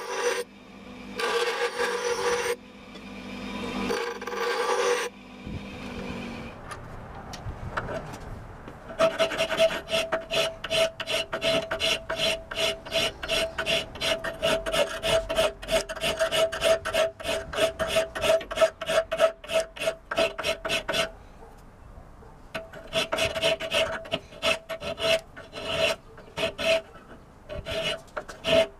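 A steel knife blade is ground briefly on a bench grinder wheel in a few short bursts. Then a round file rasps along the blade's curved steel edge in rhythmic strokes, about three a second, each with a slight ringing note, pausing briefly about two-thirds of the way through.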